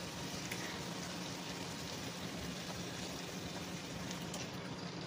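Chicken and broccoli sizzling in a frying pan beside a pot of fettuccine at a rolling boil, a steady hiss. The hiss turns duller near the end as jarred white sauce is poured into the pan.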